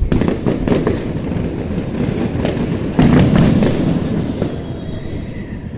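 Fireworks going off: a quick string of sharp cracks and bangs, then a louder burst about three seconds in that trails off in crackling.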